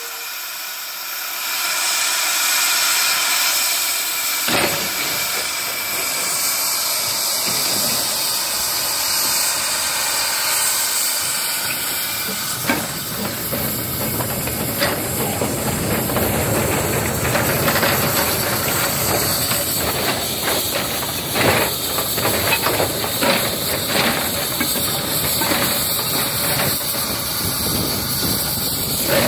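Small narrow-gauge steam locomotive hissing steadily as steam escapes. From about halfway through, sharp metallic clanks and knocks join the hiss as the engine works with its wooden quarry wagons.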